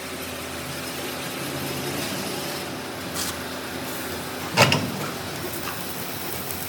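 Workshop machinery running with a steady hum, with one loud knock about two-thirds of the way through.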